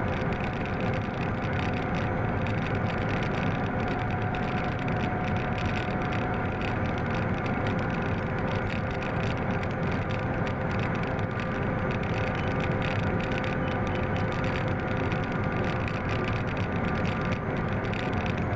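Class 750 'brejlovec' diesel locomotive running steadily under way, heard from inside the cab: an even engine and running noise with several steady whining tones over it.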